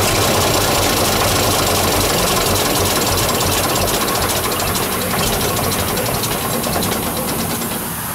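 Six-cylinder diesel tractor engine running steadily, with a rapid even ticking over the top of it; it eases off a little in loudness near the end.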